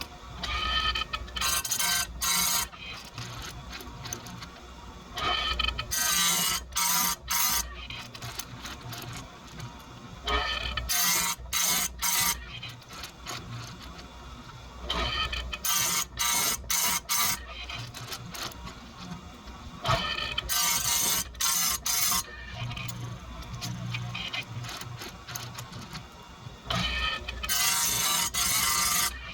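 Chainsaw-chain grinder's abrasive wheel grinding saw-chain teeth one after another: a gritty grinding burst of several quick touches about every five seconds, with the grinder motor running between.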